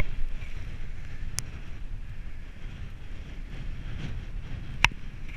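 Wind rushing over the microphone of a camera riding along on a road bike, a steady low rumble. Two sharp clicks stand out, about a second and a half in and near the end.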